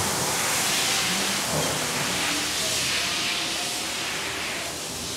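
A steady, loud hiss like rushing air, with no rhythm and no change in pitch.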